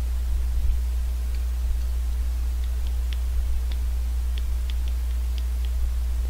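Steady low electrical hum with a constant hiss, broken by a scattered series of faint, short ticks.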